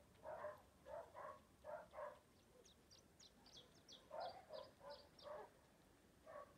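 Faint dog barking, short barks repeated a few times a second with a pause near the middle. Over the pause a small bird gives a quick run of high chirps, about four a second.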